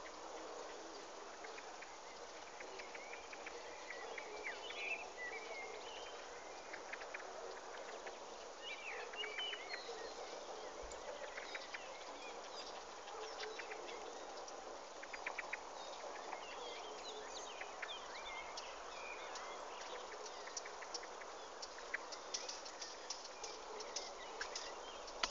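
Small birds chirping and calling with short, quick notes, over a steady background hiss; scattered sharp clicks come more often near the end.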